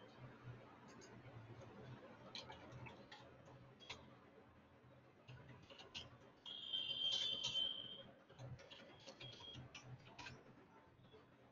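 Faint computer-keyboard typing, irregular clicking keystrokes as an email address is typed into a web form. A little past the middle, a high steady tone sounds for about a second and a half, louder than the typing. A shorter, fainter tone follows about a second later.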